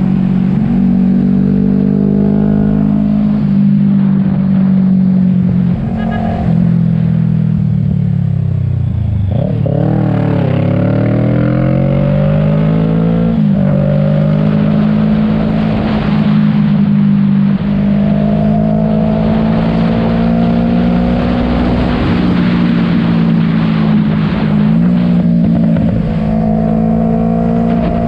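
Motorcycle engine running under way at a steady pitch, with wind and road noise. About eight seconds in the engine note falls as the bike slows, then climbs as it accelerates, dropping sharply at a gear change about thirteen seconds in before settling at cruising speed again.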